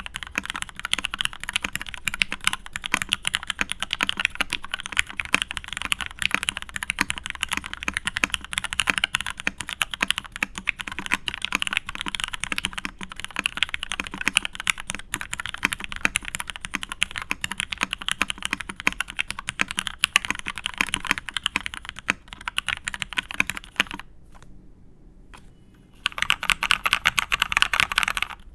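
Steady fast typing on a custom mechanical keyboard with lubed vintage Cherry MX Black linear switches, an aluminium plate and Cherry G80-3000 keycaps: a dense run of key clacks. The typing stops for about two seconds near the end, then resumes.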